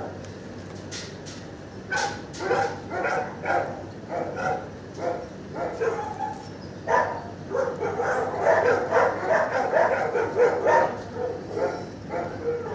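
Dogs barking repeatedly. The barks begin about two seconds in and come thick and fast in the second half.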